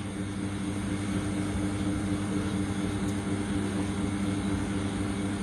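A steady machine drone: a low, even hum with a rushing noise over it, growing slightly louder.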